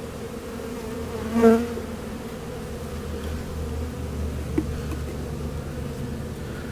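Honeybees buzzing steadily around an open hive, with a brief louder buzz about a second and a half in and a light click a few seconds later.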